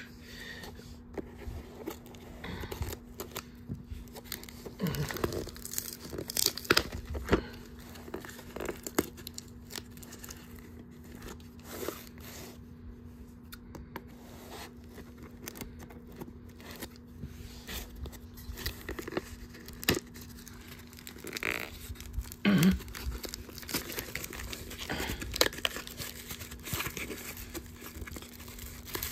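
Hands tearing open and crinkling the packaging of a small mailed package, in irregular rips and rustles with scattered sharp crackles.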